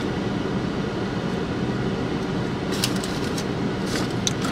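Steady running drone of a car, with a constant low hum, heard from inside the cabin. A few faint crinkles of the paper fry wrapper come about three and four seconds in.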